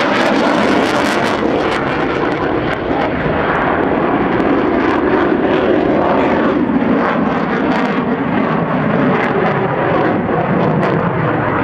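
Saab JAS 39 Gripen fighter jet's single Volvo RM12 turbofan engine running at display power as the jet manoeuvres overhead: a loud, steady rushing noise with a ragged crackle through it.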